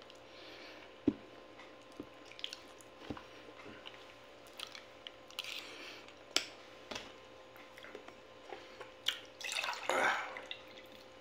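Eating sounds: a metal spoon clicking sharply against a glass bowl several times, with chewing in between, then water poured from a plastic pitcher into a drinking glass near the end.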